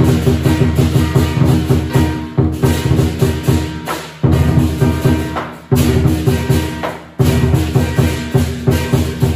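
Lion dance percussion ensemble: a drum beating several strokes a second under ringing gongs and clashing cymbals. The playing drops away briefly three times, about four, six and seven seconds in, and comes back in loudly each time.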